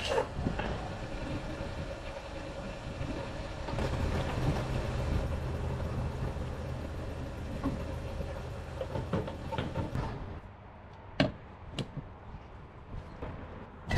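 Fuel pump running and fuel flowing through the nozzle into a car's tank: a steady hum with a faint whine that stops about ten seconds in. A few sharp clicks and knocks follow as the filler cap and flap are closed.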